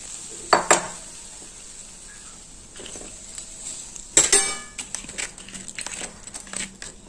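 Metal spoon and pot clinking against a metal cooking pan: two light clicks about half a second in, a louder clank with a short metallic ring about four seconds in, then small scraping and clicking as the spoon works through the mixture in the pan.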